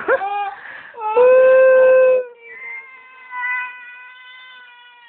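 Toddler crying: a few short sobs, then a loud held wail about a second in, followed by a quieter, drawn-out wail that rises in pitch at the end.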